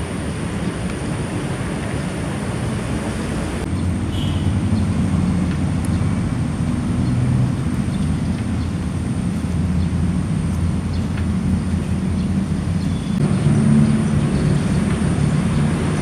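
Steady low rumble of a running engine. The sound shifts abruptly about four seconds in and again near the end.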